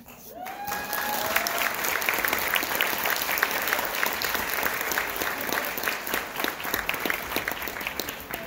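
Audience clapping and cheering after a performance. The applause builds over the first second with a few cheering calls, holds steady, and starts to fade near the end.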